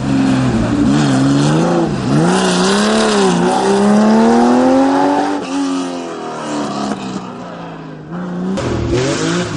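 Historic rally car engine at hard throttle: the pitch climbs and drops through several gear changes and lifts as the car passes, fading after about five seconds, then revs rise sharply again near the end.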